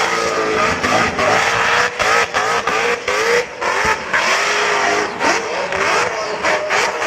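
Supercharged burnout car's engine revving hard at high revs while its rear tyres spin in thick smoke. The engine note keeps rising and falling, with frequent brief dips as the revs drop and pick up again.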